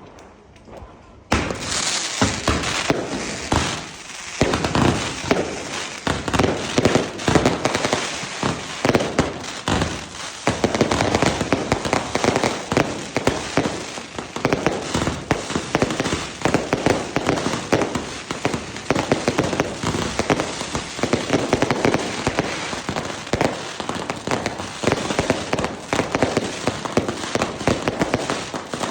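Firecrackers and fireworks going off in a dense, continuous barrage of rapid bangs and crackles, starting suddenly about a second in.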